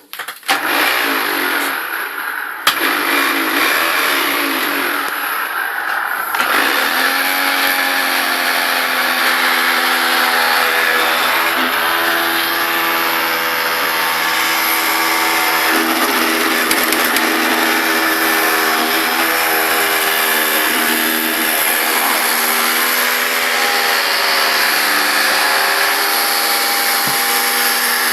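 Failing vacuum cleaner motor running loud, with a wavering, unsteady pitch: strange motor noises from a motor on its way out. It runs choppy and uneven for the first few seconds, then settles into a steady run from about six seconds in.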